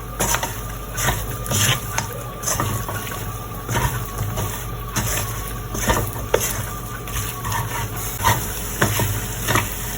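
Spiced chicken pieces frying in a pan, sizzling steadily, with frequent scrapes and knocks of a spatula as they are stirred.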